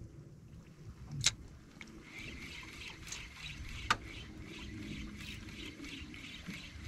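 Water sloshing and trickling against a small fishing boat's hull, with two sharp clicks, about a second in and about four seconds in.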